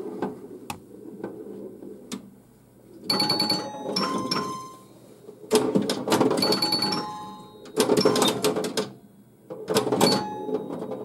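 1978 Bally Black Jack pinball machine in play: clacks of flippers, bumpers and targets, the ball rolling, and short ringing scoring sounds. These come in several bursts with brief lulls between.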